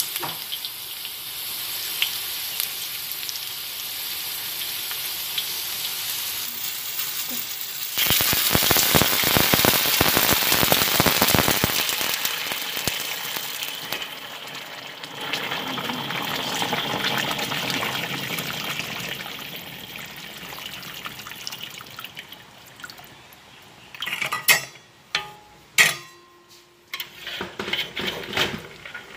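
Garlic, ginger, cinnamon and rock sugar frying in oil in a wok: a steady sizzle that jumps much louder about eight seconds in, hisses hard for a few seconds, then eases off. Near the end come a few sharp knocks of a metal ladle against the wok.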